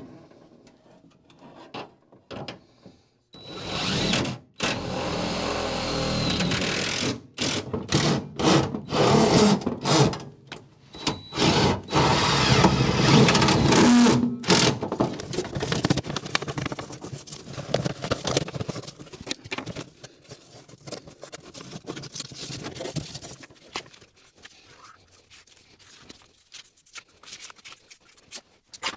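Cordless drill running in repeated bursts for about ten seconds, driving screws into the truck's sheet-metal floor pan, followed by quieter, scattered handling noises.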